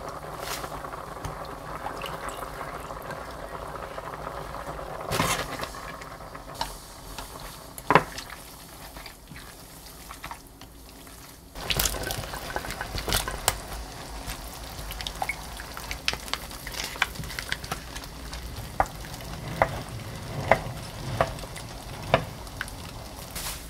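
Cooking sounds at a ceramic pot of soft tofu stew: ingredients dropped into the broth and a wooden spoon stirring and knocking against the pot, with scattered sharp knocks that come more often in the second half. The broth is still heating and not yet at the boil.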